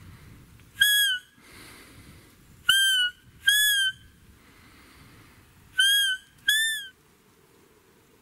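Belblatt roe deer call blown hands-free in the mouth, imitating a roe doe's high, squeaky fiep call. It gives five short, high squeaks, each rising slightly and then falling: one on its own, then two pairs.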